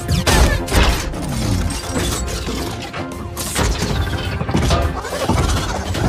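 Film sound effects of a semi truck transforming into a giant robot: dense metallic clanks, clicks and clattering with gliding mechanical whirs, over a film score.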